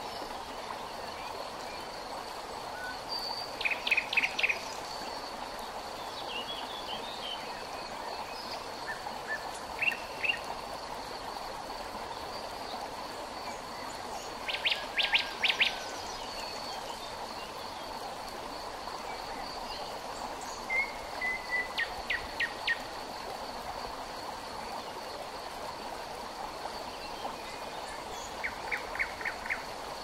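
A wren calling in five short bursts of rapid, repeated chattering notes. They sound over the steady rush of flowing river water, with a faint steady high whine behind them.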